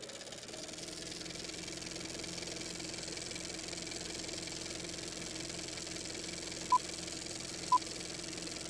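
Retro film-countdown sound effect: a steady hum with hiss under it, and near the end two short beeps a second apart, then a higher beep as the count reaches the last numbers.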